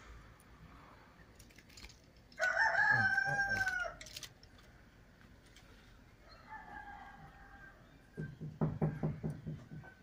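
A rooster crowing loudly about two and a half seconds in, one long, slightly falling call, with a fainter second crow around six and a half seconds in. Near the end comes a quick run of low pulsing sounds.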